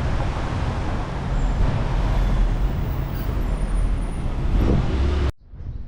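Street traffic: a steady noise of passing cars and other vehicles with a heavy low rumble, cutting off abruptly about five seconds in.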